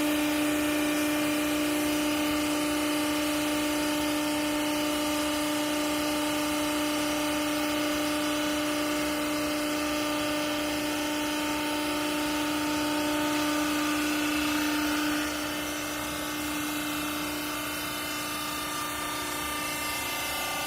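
Hydraulic power unit of a used-clothes baler running: a steady whining hum holding one pitch while the press works, dropping out suddenly about fifteen seconds in to a quieter steady machine hum.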